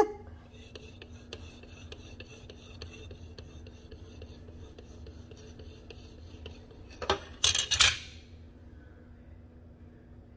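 Quiet kitchen handling: a faint steady hum with light ticks, then a short, noisy scrape of a kitchen utensil against cake and pan about seven seconds in.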